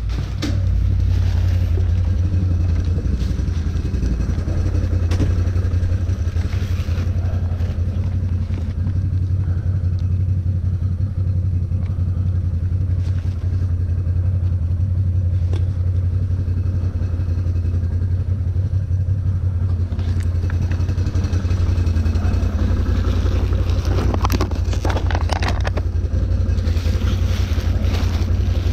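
Can-Am 6x6 ATV's V-twin engine running at a steady speed, a deep even hum that holds unchanged throughout.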